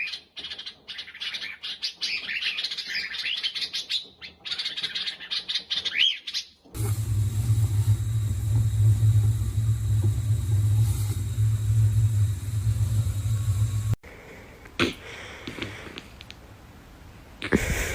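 Bird chirping and twittering in short high calls, cut off suddenly about seven seconds in by a loud, steady low hum. After another abrupt change, a quieter stretch with a few knocks follows.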